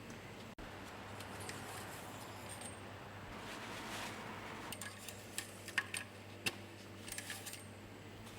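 A few faint sharp clicks, then a short light metallic jingle about seven seconds in.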